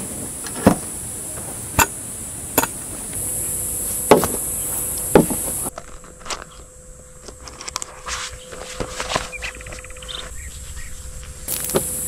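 A folding table with a metal frame set up with a handful of sharp knocks and clacks, over a steady high buzz of insects. About halfway through the buzz drops away and quieter clicks and handling noises follow as a leather knife bag's metal clasp is opened.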